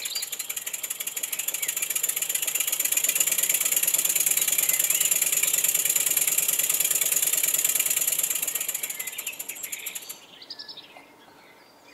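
Wig-Wag triple inline model steam engine running fast: a rapid, even chuffing patter from its three cylinders' exhaust, with hiss. It grows louder over the first few seconds, runs steady, then fades and cuts off about ten seconds in.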